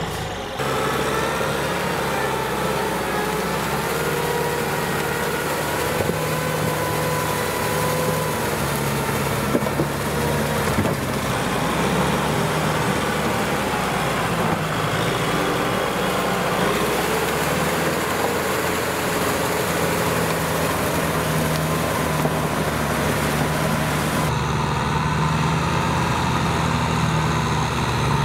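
Kubota M6040SU tractor's four-cylinder diesel engine running steadily as the tractor works through deep paddy mud.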